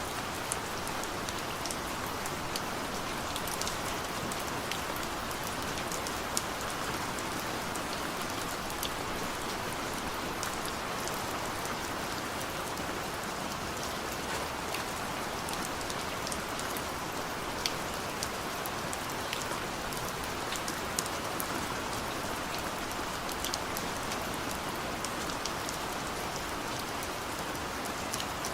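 Heavy rain falling steadily in a forest, a dense even hiss with the sharp ticks of separate drops scattered through it.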